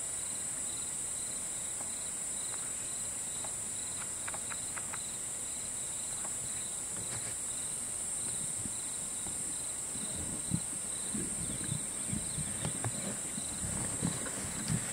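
Steady, high-pitched buzzing of an insect chorus, with a cricket chirping in regular pulses about twice a second. Irregular low rumbles and knocks begin about ten seconds in.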